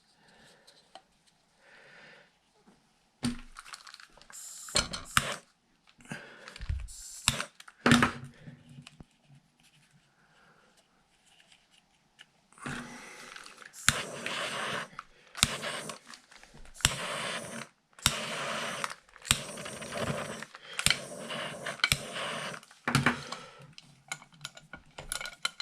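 Hands working on the RC truck's plastic parts and wiring: scattered clicks and knocks, a short lull, then about halfway through a busy stretch of rattling, rustling and clicking.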